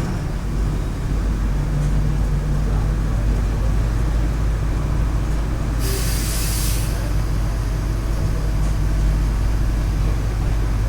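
Mercedes-Benz OF 1519 Bluetec 5 bus's diesel engine running with a steady low drone. About six seconds in, a short burst of compressed-air hiss comes from the bus's air system, about a second long.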